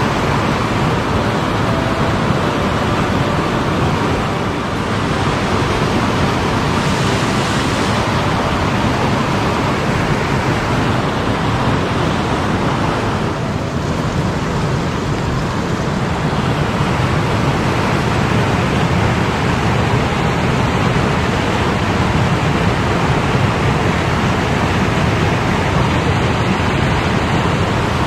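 Steady rush of a mountain stream's flowing water close by, loud and unbroken.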